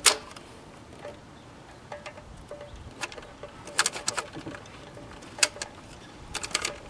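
Sharp clicks and crackles from a control knob being turned on a vintage Magnavox console stereo: one loud click at the start, a quick cluster about four seconds in, another single click, and a second cluster near the end.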